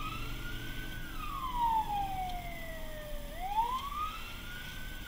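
Fire truck's wail siren heard from inside the cab, sweeping slowly up and down in pitch, about one rise and fall every four seconds, with two peaks here. A low rumble of the moving truck runs underneath.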